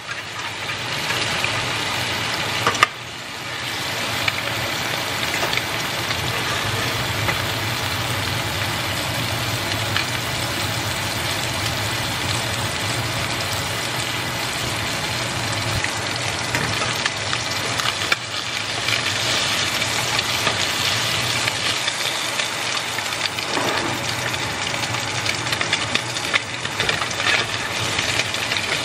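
Fish fillets frying in oil and butter in a nonstick pan: a steady sizzle with small spatters, and a slotted spatula now and then tapping or scraping the pan. Under it runs a steady low hum.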